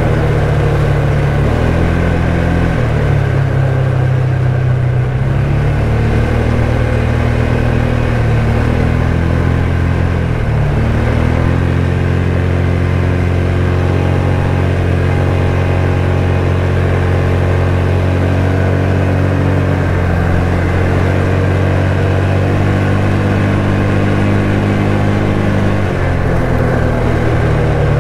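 ATV engine running while riding a trail, its pitch stepping up and down with the throttle, with a brief dip about ten seconds in.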